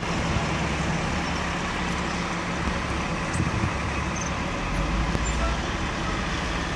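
Diesel engines of fire apparatus, a tiller ladder truck and a fire engine, running as they drive slowly past: a steady low engine hum under an even hiss of background noise, the hum growing stronger near the end.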